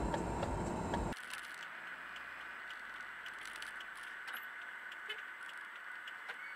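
A louder, dense noise stops abruptly about a second in. Then comes a quiet dashcam recording from inside a car: a faint steady high whine with scattered small clicks and rattles.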